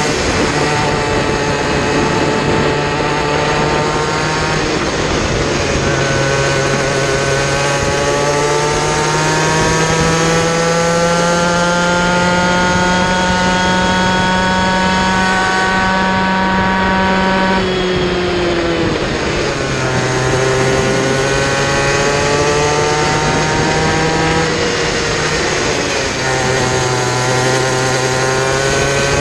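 Kid kart engine at racing speed, heard from onboard, its pitch rising and falling with the throttle. A long climb in pitch through the middle ends in a sharp drop about two-thirds in as the kart slows for a corner, then it climbs again, with a brief dip near the end.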